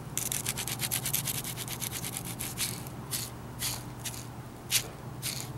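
Worn clutch-side ball bearing spun by hand. The balls rasp rapidly inside it for about two and a half seconds, then a few separate clicks follow as it slows. The rough noise is the sign of wear: it still turns but has little life left.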